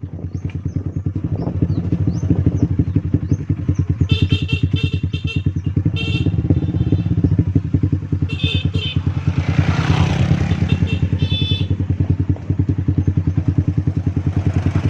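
Small engine running steadily, with an even rapid pulse of firing strokes, like a motorcycle under way. Several short high-pitched chirps come and go over it in the middle part.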